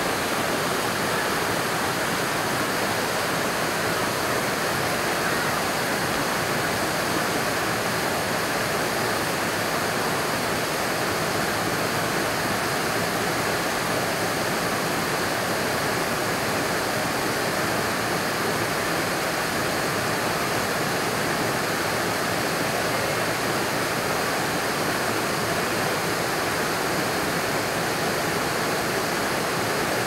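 Waterfall close up: a steady, unbroken rush of falling water.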